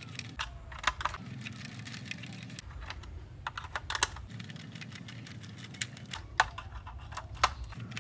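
Small screws being tightened into a plastic toy truck: many light, irregular clicks and ticks of the screwdriver and plastic parts, with a few sharper clicks.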